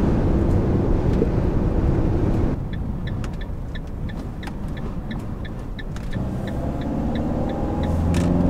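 Fiat Ducato camper van heard from the cab: steady engine and road noise at highway speed. About two and a half seconds in it drops abruptly to a quieter cab, where the turn-signal relay ticks regularly, about three clicks a second. Near the end the engine note rises as the van pulls away again.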